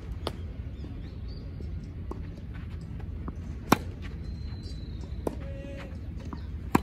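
Tennis racket striking the ball in a groundstroke rally: two sharp pops, one about halfway through and one near the end, about three seconds apart, over a steady low background noise.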